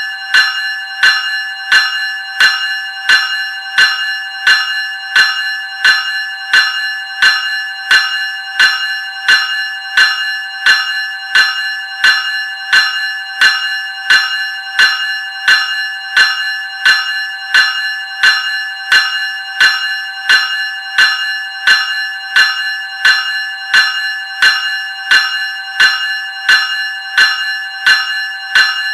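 Graham 373 Series electric bell ringing in a steady, even rhythm of about three strokes every two seconds, each stroke ringing on with a bright metallic tone.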